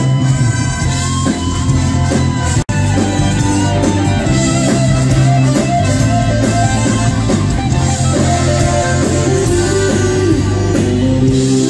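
Live band playing over a PA, led by guitar, with no vocals. The sound cuts out for an instant about three seconds in.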